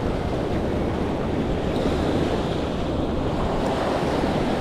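Small ocean waves breaking and washing up over the sand in a calm surf, a steady rush of foam. Wind buffets the microphone.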